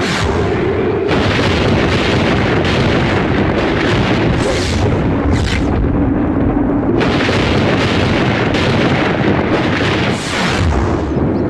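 Action-film soundtrack effects: a run of loud booming hits and surges, one after another, over a steady low drone.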